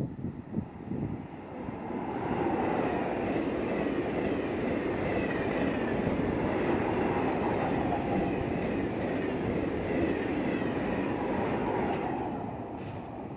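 TGV trainset running past the platform: rumble and rush of wheels on rail with a faint high whine. It builds about two seconds in and eases off near the end.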